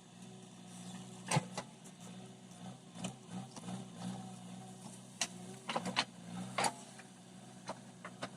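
Backhoe loader's diesel engine running at a steady low drone, with several sharp metallic clanks from the working machine scattered through.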